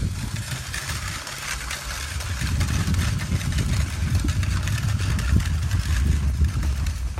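Footsteps crunching through snow on a wooden footbridge, many short irregular crunches, over a steady low rumble that grows louder about two and a half seconds in.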